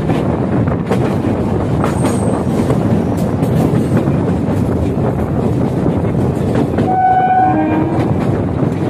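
Electric suburban local train running, heard from its open doorway: a steady rumble of wheels on rail with faint clicks over joints and points. Near the end a train horn sounds briefly, a higher note followed by a lower one.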